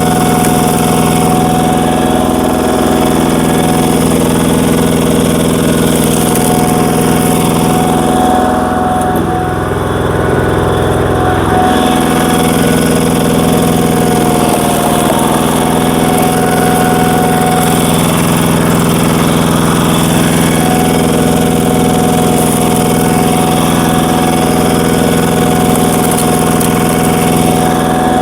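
Power tiller's single-cylinder diesel engine running steadily at full throttle, driving a screw cone log splitter. The engine note dips and shifts briefly about nine to twelve seconds in.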